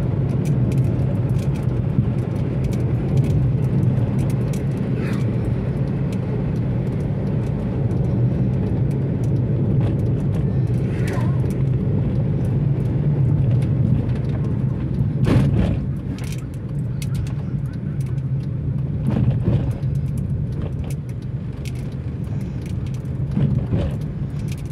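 Steady low hum of a Hyundai car's engine and road noise heard inside the cabin while driving, with scattered small knocks and one louder thump about fifteen seconds in. The noise eases a little after that as the car slows down.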